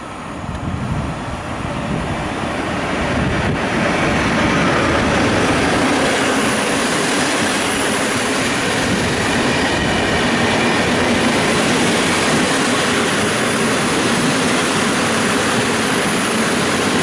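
PKP Intercity passenger train of locomotive-hauled coaches passing along the platform, its wheels running on the rails in a loud, steady rush. The noise builds over the first few seconds as the train arrives, then holds steady as the coaches go by.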